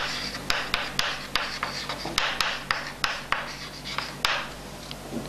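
Chalk writing on a chalkboard: scratchy strokes with many sharp taps as a word is written out, thinning out near the end.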